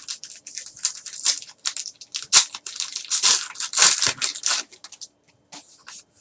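Trading-card pack wrappers being torn open and crumpled by hand: a run of quick irregular ripping and crinkling, busiest in the middle.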